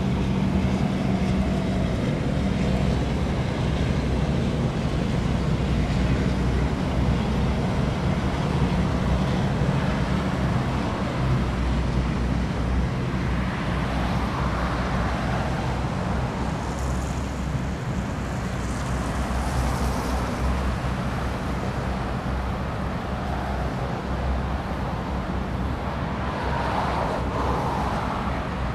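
Steady city road traffic: cars and other vehicles running along the road, a continuous low hum of engines and tyres.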